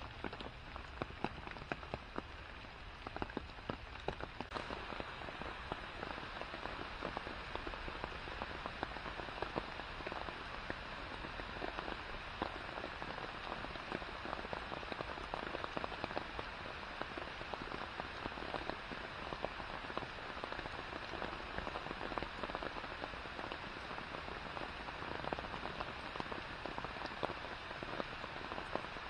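Steady rain falling on a river's surface and on forest leaves: a dense, even hiss made of countless drops, with scattered sharper drips standing out.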